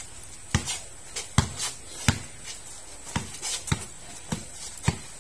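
A basketball being dribbled on the court: a steady run of short bounces, about one and a half a second.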